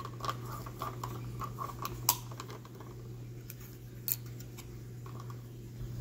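Small plastic clicks and taps of Littlest Pet Shop toy figures and a toy TV being handled and set down on a tabletop, over a steady low hum. The sharpest clicks come about two and four seconds in.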